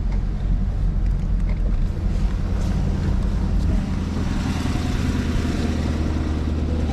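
2020 Corvette C8's 6.2-litre V8 running at a steady low idle as the car creeps slowly backward.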